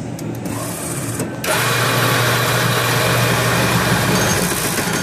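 A mechanical unit's motor runs with a steady low hum. About a second and a half in, a loud rushing, whirring noise starts and keeps going. This is the weird noise the owner wonders comes from the unit running backward.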